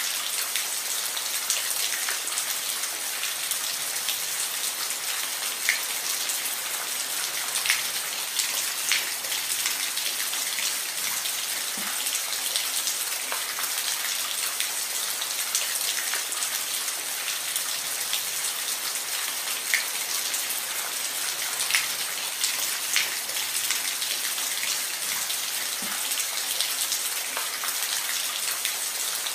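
Steady rain with many distinct drops ticking on a surface at irregular times.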